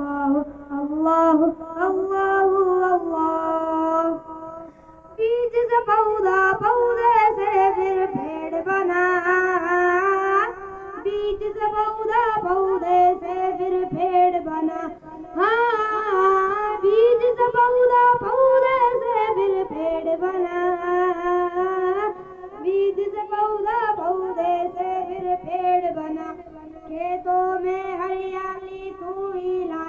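A boy singing a devotional Islamic poem alone in a high voice, without instruments, through a public-address system, with long held and ornamented notes and a short breath pause about four seconds in.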